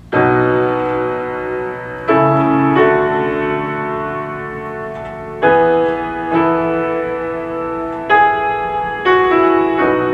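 Solo piano music played back through loudspeakers: full chords struck every one to two seconds, each left to ring and fade.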